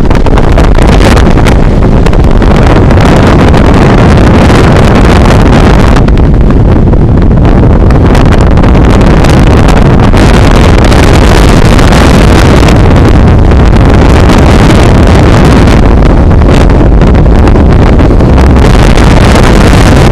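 Strong wind buffeting the microphone: a loud, constant rumble and roar with surging gusts.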